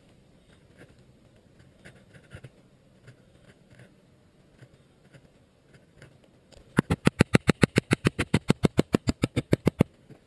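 Faint scratching of a knife point scoring a groove into a soft wooden board. About seven seconds in comes a loud, fast, rhythmic scraping of about ten strokes a second, lasting some three seconds: a wooden stick rubbed back and forth along the groove of a fire-plow board.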